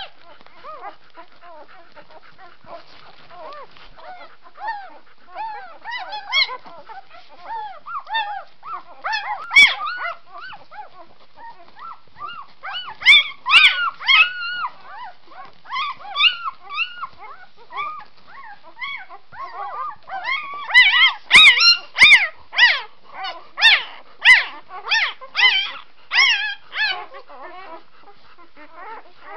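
Three-day-old puppies squeaking and whimpering while nursing and jostling at their mother's teats: many short, high, overlapping squeaks throughout. They come in louder flurries about halfway through and again in a run of sharp squeals in the later part.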